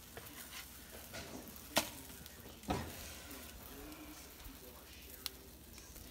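Battered bass fillets sizzling in oil in a frying pan while a spatula is worked under them, scraping and knocking against the pan in a few sharp clicks.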